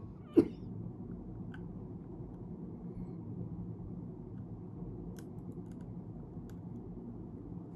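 One sharp knock about half a second in, then a few faint, scattered clicks of a thin metal precision tool working at the edge of the camera's lens ring, over a steady low background noise.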